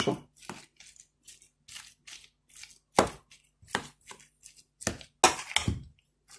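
Metal utensil mixing mashed potato and tuna in a metal bowl: a run of short scrapes and taps against the bowl, about two a second, with the loudest strokes about three seconds in and again between about five and six seconds.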